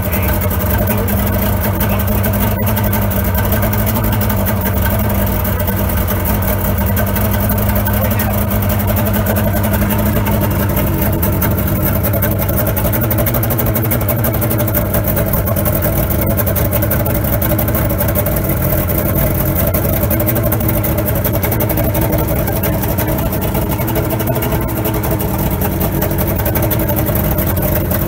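Outboard motor running steadily out of the water, its exhaust piped through a stovepipe elbow into a bucket of water that muffles it.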